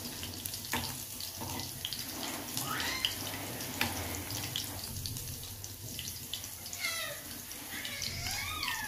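Chopped ginger, garlic and green chillies frying in hot oil in a nonstick kadai: a low, steady sizzle, with a metal spoon stirring and clicking against the pan. A few short gliding pitched calls sound in the background, near the middle and near the end.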